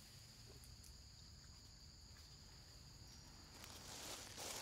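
Near silence with a faint, steady, high-pitched insect drone, and a brief soft hiss near the end.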